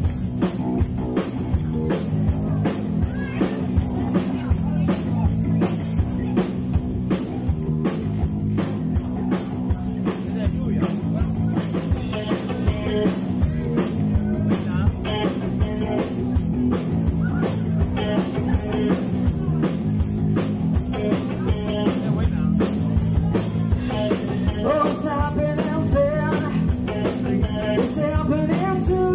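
Live rock band playing loud through a bar PA: electric guitar, electric bass and a drum kit with a steady, driving beat. The passage is mostly instrumental, with the lead singer off the microphone for much of it.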